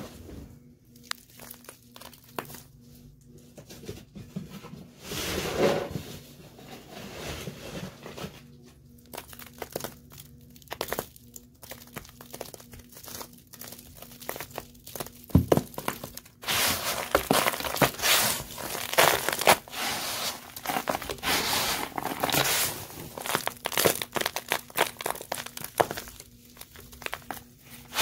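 Hand raking and crunching through a dry mix of dirt, lint, confetti and small plastic gems. It starts as scattered crackles and rustles, then turns to dense, continuous crunching a little past halfway.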